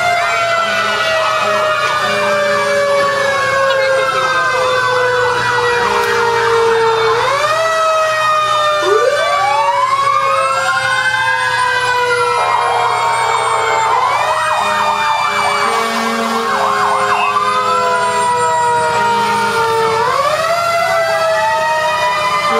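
Several fire truck sirens sounding together, loud and overlapping. Each repeatedly rises quickly in pitch, then falls slowly over several seconds.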